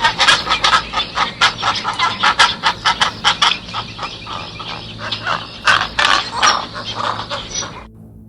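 A flock of domestic fowl calling over one another in rapid, crowded calls, cutting off abruptly near the end.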